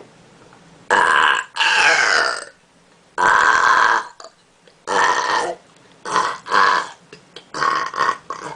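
A girl burping on purpose: a string of about eight short, loud burps one after another, some in quick pairs.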